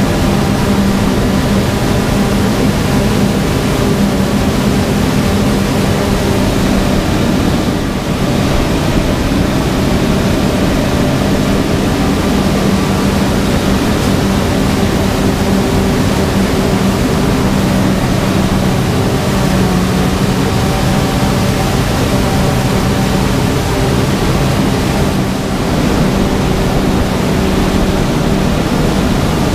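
Claas Jaguar 970 self-propelled forage harvester running under load as it chops standing corn for silage: a loud, steady drone with a constant low hum from the engine, cutterhead and blower.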